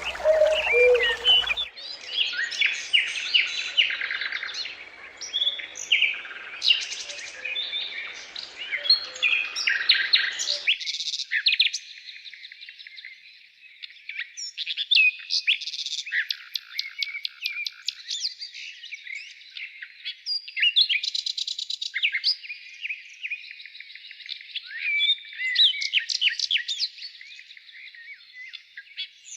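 Small songbirds singing in dense, rapid twittering and trilling phrases. The recording changes about two seconds in and again about ten seconds in, after which only the high song remains, with no low background.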